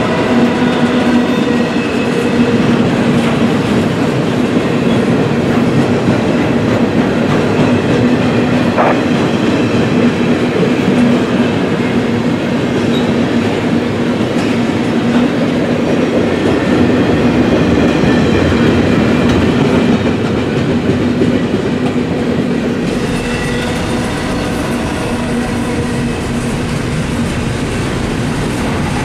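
BNSF double-stack intermodal container train passing close by: steady noise of steel wheels running on the rails under the loaded well cars, a little quieter after about twenty-three seconds.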